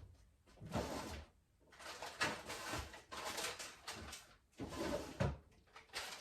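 Kitchen items being handled: rustling and clattering in a few bouts, with soft knocks as things are set down, while butter and cheese are fetched from the fridge.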